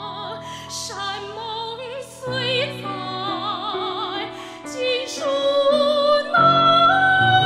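Female soprano singing a Chinese art song in operatic style with a wide vibrato, over sustained chordal accompaniment. About six seconds in she rises to a held higher note and the music swells louder.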